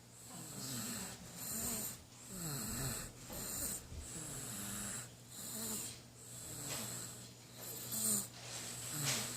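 A 4.5-month-old baby snoring in quick breaths, about one a second, many with a short wavering pitched note.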